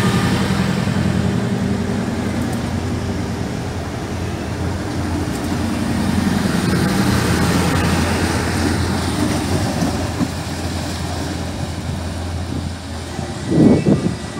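Regional multiple unit MD 060 moving off along the platform: a steady low motor hum with rail noise that eases a little as it goes. Near the end a louder rush of noise cuts in briefly.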